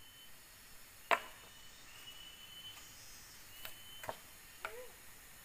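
Long bamboo pole knocking as it is stood upright and worked into place: one sharp hollow knock about a second in, then three lighter knocks near the end, over a faint steady high tone.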